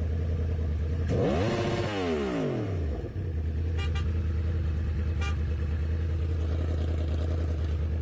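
Motorcycle engine idling steadily. About a second in, the revs climb and then fall back over a couple of seconds before it settles to idle again.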